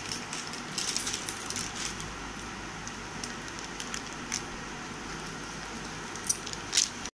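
A few faint clinks and light scrapes of a spoon adding gram flour to a steel mixing bowl of chopped onion and coriander, over a steady low hiss. A couple of sharper clicks come near the end.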